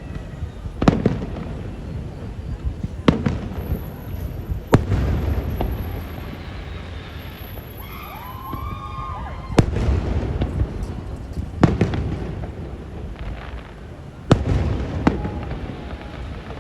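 Aerial fireworks going off: about six loud bangs a couple of seconds apart, with rumbling and crackling between them.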